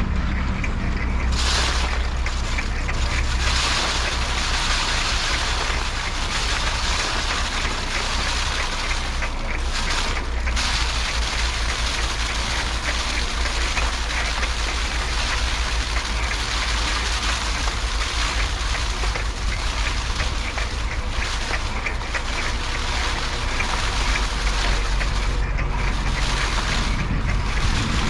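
Foot-pedal paddy thresher running: its spinning drum makes a steady, rushing whir, with a low rumble underneath, as rice stalks are threshed.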